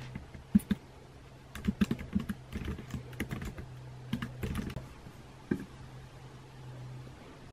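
Typing on a laptop keyboard: irregular bursts of quick key clicks that thin out after about five seconds, over a steady low hum.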